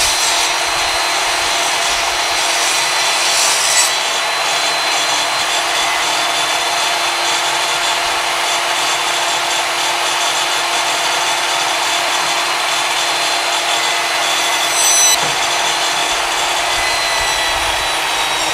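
Craftsman table saw ripping a 2x4 lengthwise, the blade running steadily through the wood as the board is fed along the fence. A brief knock sounds about four seconds in and again near fifteen seconds.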